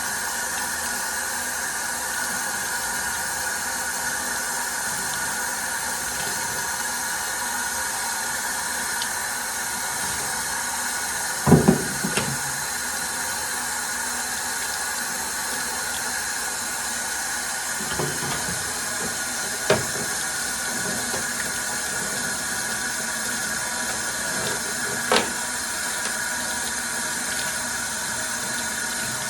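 Solvent runs in a steady stream while a bicycle chain is cleaned in it. Metal knocks a few times as the chain moves, loudest about halfway through.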